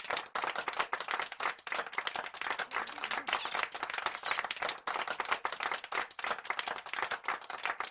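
Applause: many hands clapping in a dense, irregular patter.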